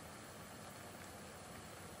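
Steady low hiss of a pot of noodle soup boiling on a gas stove burner.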